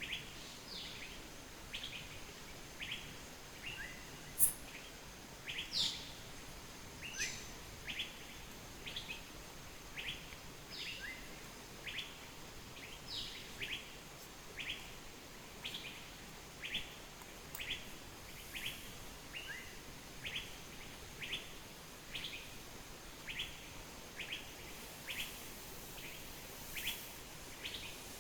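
Bird calling in short, high chirps, repeated about once or twice a second, with a louder, higher note about four seconds in, over a steady background hiss.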